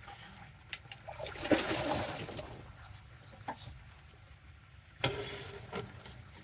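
Water splashing for about a second, then a few sharp knocks.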